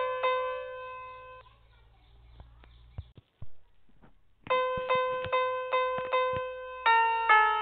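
Background music of single keyboard notes, one after another at an even pace. It breaks off for about three seconds in the middle, with only a few faint clicks, then picks up again.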